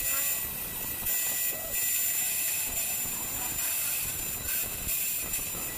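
Electric angle grinder running steadily with a high whine, its disc grinding the edge of a thin iron-sheet strip in short passes, the rasping hiss coming and going as the strip is pressed on and eased off.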